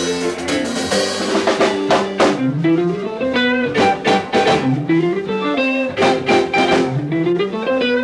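A live rock band playing loudly: electric guitars over a drum kit. A riff with a rising slide comes round about every two seconds, with drum and cymbal hits throughout.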